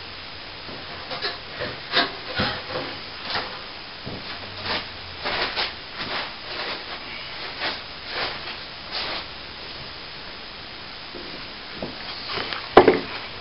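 Plastering trowel scraping across wet plaster on a ceiling patch in a run of short, irregular strokes. A single sharp knock comes near the end.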